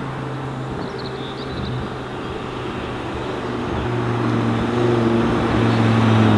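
Audi RS3 8Y's 2.5 TFSI five-cylinder engine through an Akrapovic exhaust, running at low, steady revs as the car approaches and growing louder, with a slight drop in pitch near the end.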